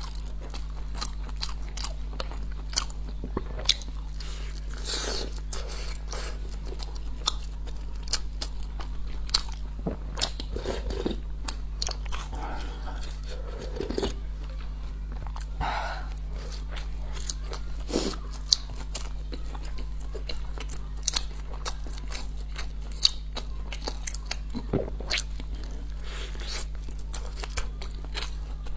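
Close-miked eating: biting and chewing, with many small sharp crunches and wet mouth noises.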